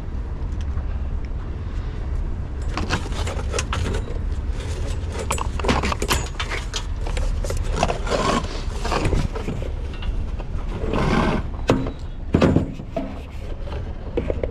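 Close-up handling noise from cutting the power cord off a small appliance with hand cutters: irregular clicks, rattles and scraping, busiest from about two and a half seconds in, over a steady low rumble.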